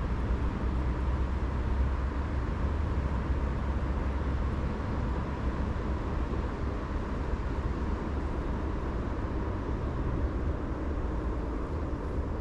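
Strong wind buffeting the microphone: a steady, gusting low rumble with a hiss over it.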